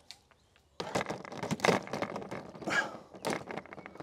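A rapid, irregular run of clicks and knocks that starts about a second in, after a near-quiet moment.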